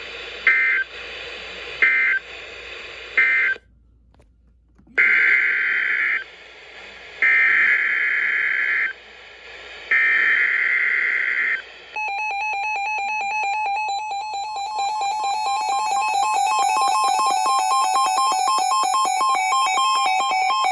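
Emergency Alert System SAME data tones: three short end-of-message bursts close the thunderstorm warning, then after a brief gap three longer header bursts begin the next alert. About halfway through, the steady two-tone EAS attention signal starts.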